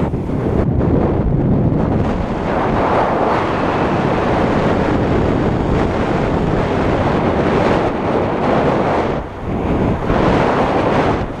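Strong wind buffeting the microphone: a loud, steady rumble that eases briefly about nine seconds in.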